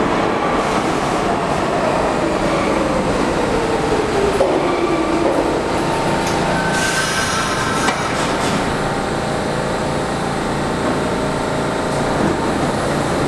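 An NYC Subway R32 train standing at a platform, its equipment humming and rumbling steadily. A whine falls in pitch over the first few seconds, and a short hiss comes about seven seconds in.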